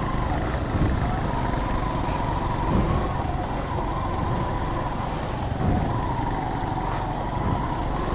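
Small motorcycle engine running at low speed on a rough dirt trail, its pitch wavering up and down with the throttle over a steady low rumble, with a few short low thumps.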